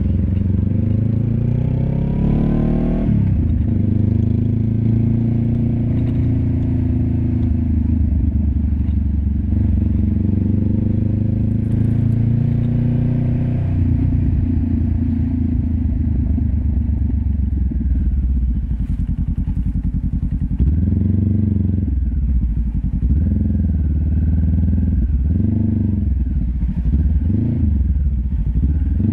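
Honda CB500X's parallel-twin engine through a LeoVince LV10 exhaust, heard close to the exhaust while riding. The pitch climbs for the first few seconds and drops sharply about three seconds in. It then runs steadily, and near the end it rises and falls in a series of short throttle openings and closings.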